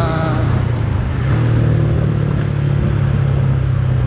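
Yamaha Sniper 135 single-cylinder four-stroke engine idling steadily through an aftermarket Replica Pro standard-type exhaust pipe.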